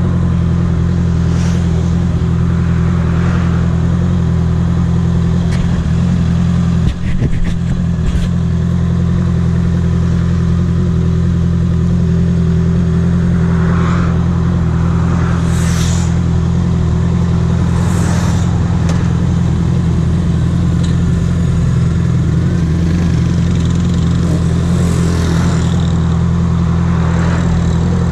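Motorcycle engine idling at a steady pitch at walking pace in stopped traffic, with a brief knock about seven seconds in and passing cars swelling and fading now and then.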